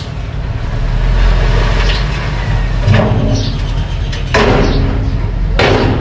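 Small crawler bulldozer's diesel engine running with a steady low rumble while it pushes dirt, with three louder, harsh bursts of track and blade noise about halfway through and near the end.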